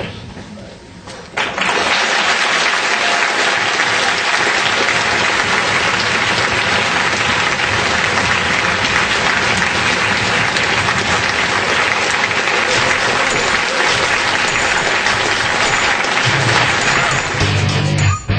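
An audience applauding, starting abruptly about a second and a half in and holding steady. Near the end, rock music with electric guitar comes in under it.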